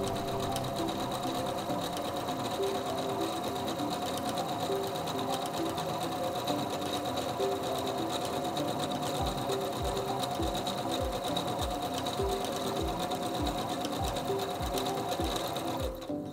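SINGER C430 computerized sewing machine running steadily, stitching a slant over edge stitch mirror-imaged left to right, then stopping just before the end. Background music plays under it, with a steady beat joining about halfway through.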